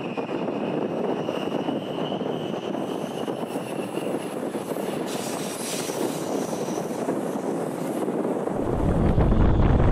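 Glacier Express train running, a steady rolling rumble of wheels on rail with a faint high whine in the first few seconds. Near the end a deep low rumble sets in and the sound grows louder.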